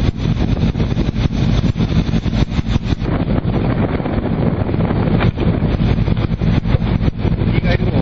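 Heavy wind buffeting the microphone at sea, in irregular gusts over a steady low engine drone. The sound changes character about three seconds in.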